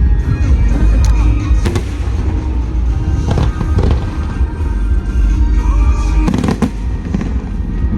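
Fireworks display: a continuous deep rumble of booming shells, with sharp bangs and crackles clustering about three and a half seconds in and again about six and a half seconds in. Music plays along underneath.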